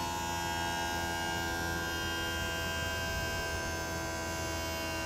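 Steady mechanical hum with several even tones from the motorhome's HWH hydraulic leveling system as the jack is lowered, its foot pressing down to snap into a rubber jack pad.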